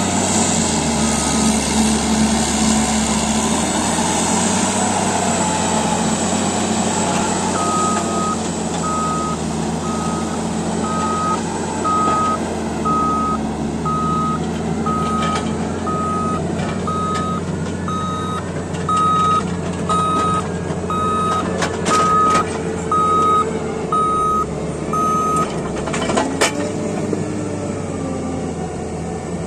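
Caterpillar D8T bulldozer's diesel engine running steadily while its reverse alarm beeps about once a second for most of the stretch as the dozer backs up. A few short knocks come in the second half.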